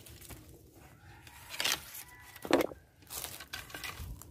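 Rustling and crinkling handling noise, with a few short, louder rustles about one and a half and two and a half seconds in.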